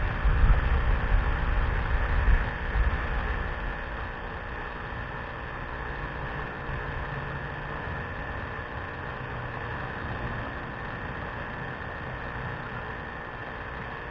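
Above-ground pool filter pump running with a steady hum, the water system freshly primed and full. Low rumbling bumps sit under the hum for the first few seconds.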